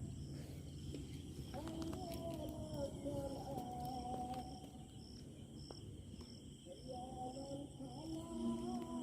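A wordless humming melody that drops away for a couple of seconds midway and then returns, over a short high chirp repeating about twice a second.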